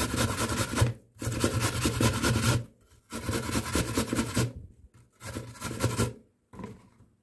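Peeled apple being grated by hand on a flat metal grater: runs of quick rasping strokes, each lasting a second or so, broken by short pauses.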